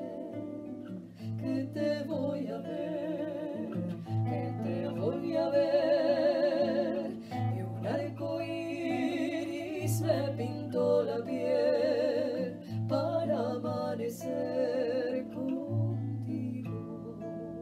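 Classical nylon-string guitar being picked, with a woman singing long held notes with vibrato over it; the voice drops out near the end and the guitar plays on alone.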